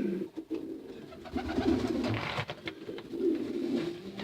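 Racing pigeons cooing, several low warbling coos overlapping one another, with a few small clicks and scuffs among them.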